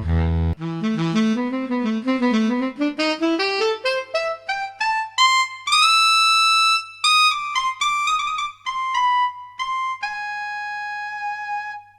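Solo saxophone playing a run of notes that climbs from its lowest register up to high notes over about six seconds, then a held high note, a few shorter notes, and a long held note near the end.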